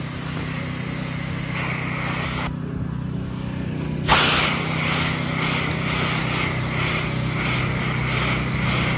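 Gas-engine pressure washer running steadily with the hiss of its high-pressure spray; the spray cuts out for about a second and a half, then starts again suddenly and pulses about twice a second.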